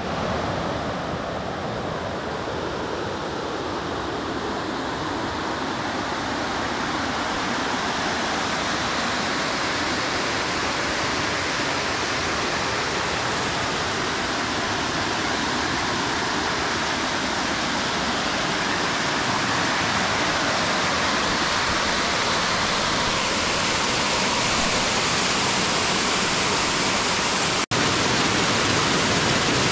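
Small waterfall and rocky stream rushing steadily, a continuous hiss of falling and tumbling water. It cuts out for an instant near the end.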